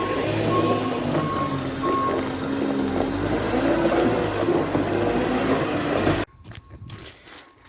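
Farm vehicle engine running and changing pitch up and down, with a reversing beeper sounding in repeated beeps for the first two seconds; the sound cuts off suddenly about six seconds in.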